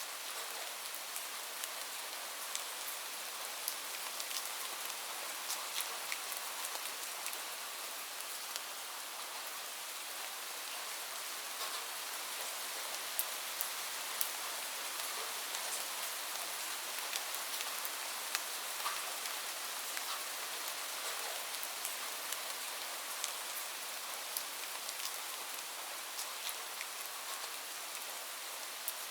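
Light rain falling steadily, a soft even hiss dotted with many small scattered drop ticks.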